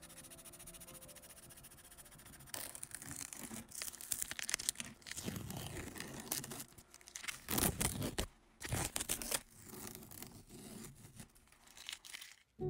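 Masking tape being peeled off the edges of drawing paper in several separate noisy pulls.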